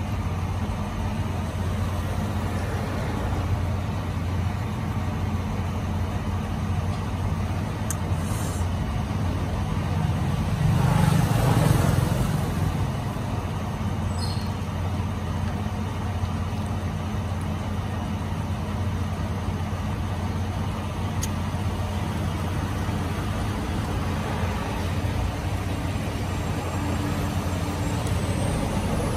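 Road traffic: a steady low engine hum, with one vehicle passing louder about eleven seconds in.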